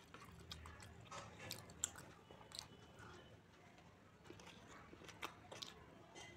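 Faint, close mouth sounds of a person chewing soft food, palak paneer with rice and naan eaten by hand, with scattered short wet clicks and smacks.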